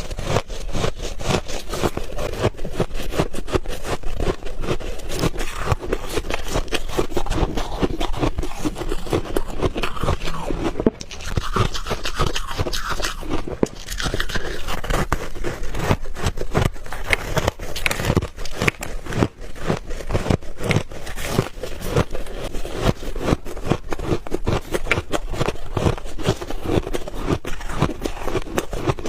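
Refrozen ice balls being bitten and chewed close to the microphone: dense, rapid crunching and crackling, with only brief pauses about eleven and thirteen seconds in.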